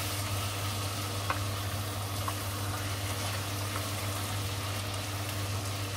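Pork cutlets and sliced onions sizzling steadily in a frying pan while a wooden spatula stirs them, with a couple of light knocks of the spatula against the pan. A steady low hum runs underneath.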